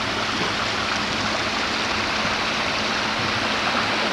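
Steady rushing noise with a faint low hum underneath.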